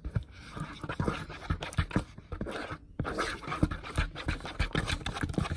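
Metal spoon stirring clear and white glue in a bowl, with quick, irregular clicks and scrapes of the spoon against the bowl.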